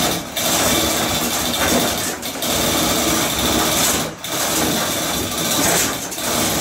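Chain hoist lifting a desktop CNC router out of its crate under load: a loud, continuous mechanical rattle with short breaks roughly every two seconds.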